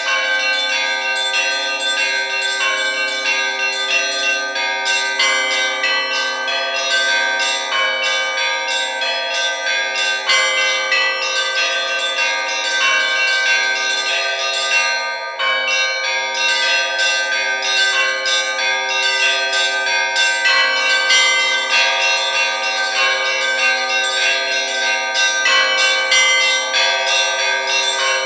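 Russian Orthodox church bells rung by hand in a continuous peal: many small and medium bells struck in quick succession over steady ringing tones, with a brief lull about fifteen seconds in.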